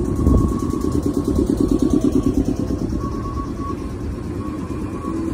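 JR 115-series electric train pulling out of a station platform, its motors and wheels making a loud rhythmic rumble that eases off after the first couple of seconds.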